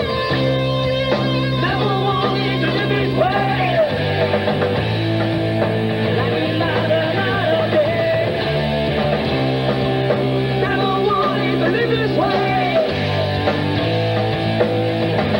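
Rock band playing live: electric guitar, bass and drums, with singing over them. Long low notes change every few seconds under the full band.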